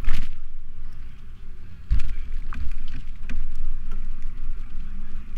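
Bicycle riding over city streets, heard through a GoPro Hero 9: a steady low wind rumble with several sharp knocks and rattles, the loudest right at the start and about two seconds in.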